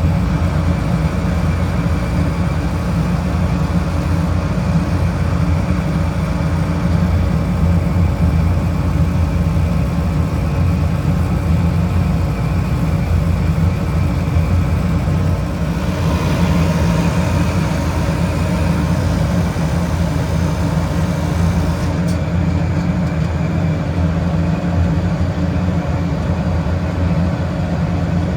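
Refrigeration condensing unit running: a steady, loud machine hum from the compressor and condenser fan, its tone shifting slightly about halfway through.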